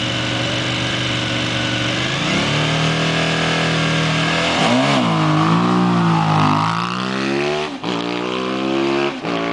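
Suzuki TL1000 V-twin engine of a racing sidecar outfit idling, then raised to a faster steady note about two seconds in. It is revved up and down a few times, and after a sudden break near the end it runs under load with the note slowly rising as the outfit pulls away.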